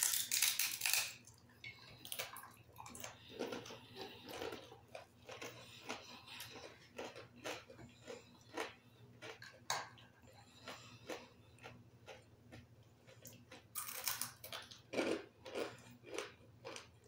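Close-up chewing and crunching of crispy fried chicken-skin chicharon. The crunches come in short, irregular bites, densest at the very start and again about fourteen seconds in, over a low steady hum.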